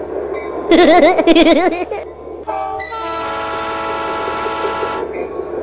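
Train horn sound effects: a loud warbling horn blast about a second in, lasting about a second. Then, after a short rising tone, a steady multi-tone train horn blast is held for about two seconds.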